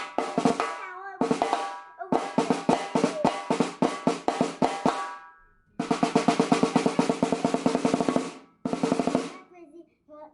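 Rebuilt snare drum being played in fast strokes and rolls, in several phrases separated by short pauses, with the head ringing under the hits. The playing stops about a second before the end.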